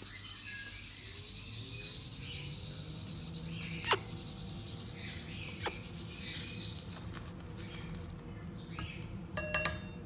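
Umbrella cockatoo chick making soft, short begging chirps, with a loud sharp click about four seconds in, a smaller one a couple of seconds later and a quick cluster of clicks near the end, over a steady low hum.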